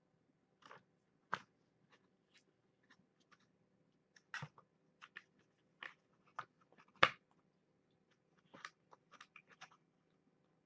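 Scattered crunches and clicks from cats moving about a small room, irregular and about a dozen in all, the loudest about seven seconds in.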